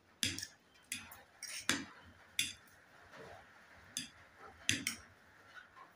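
Metal forks clinking and scraping against ceramic plates as noodles are twirled and lifted: a scattering of sharp, irregular clinks.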